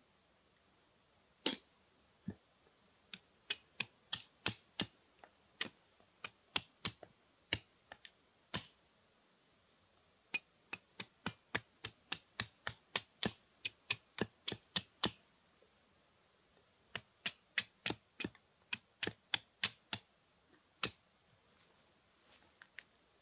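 A wooden baton knocking on the back of a hatchet set into a small log, splitting firewood by batoning. Sharp knocks come about two to three a second in three runs, with short pauses between.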